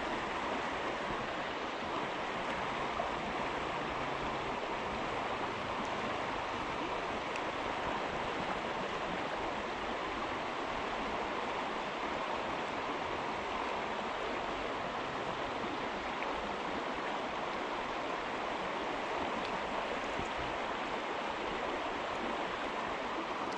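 Small stream running over a shallow riffle into a pool: a steady, even rush of water.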